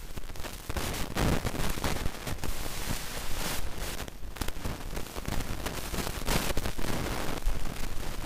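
Wind buffeting the microphone: a rushing noise with a heavy low rumble that rises and falls in irregular gusts.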